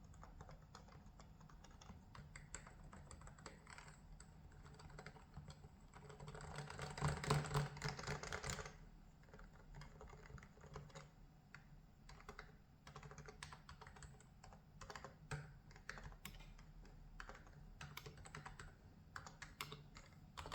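Typing on a Topre Realforce R3HD21 electrostatic capacitive keyboard fitted with PFU 2 mm key spacers: a steady run of soft keystroke clicks, with a faster, louder flurry of keystrokes from about six to nine seconds in.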